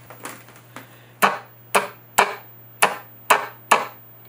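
A television's rotary channel selector clicking through its detents: six sharp clicks about half a second apart, over a steady low hum.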